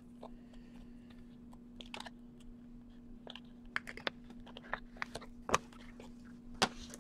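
Hands handling plastic-sleeved trading cards and packaging: scattered small clicks and crinkles, with a steady low hum behind.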